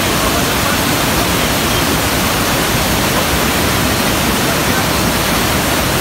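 The Rhine Falls, a large river waterfall, rushing with a loud, steady, unbroken noise of falling water at close range.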